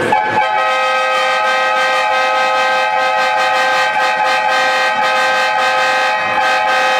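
Hockey arena horn sounding one long, steady multi-tone blast to mark the home team's entrance onto the ice.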